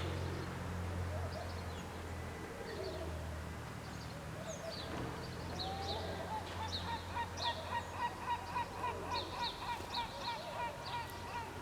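A bird calling in a rapid, even run of short notes, about three or four a second, starting about halfway through, over a low steady hum, with scattered smaller bird chirps.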